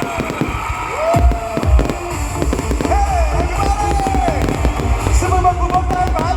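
Fireworks bursting and crackling with deep booms, the strongest about a second and a half in, over loud music from a sound system.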